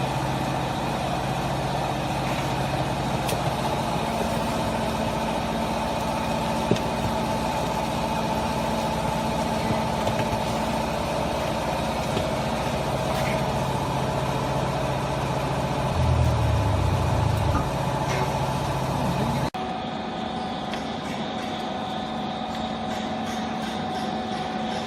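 Household garbage baler's motor running with a steady hum and several held tones. A heavier low drone comes in briefly about 16 seconds in, and the sound drops suddenly a few seconds later to a lighter steady hum.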